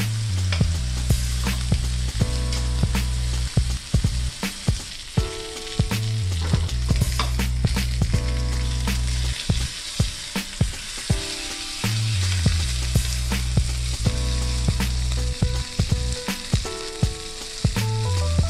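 Ribeye steak searing in hot olive oil in a stainless steel skillet, sizzling steadily, with metal tongs clicking and scraping against the pan as the steak is shifted to keep it from sticking. A music bass line plays underneath.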